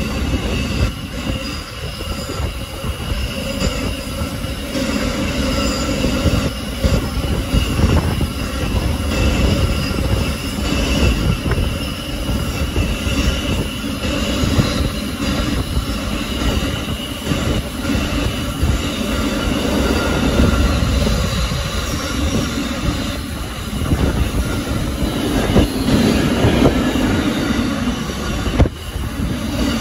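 Freight wagons of a long steel train rolling past at close range: a continuous rumble of wheels on rail with a steady high-pitched wheel squeal over it and occasional clacks from the wheels.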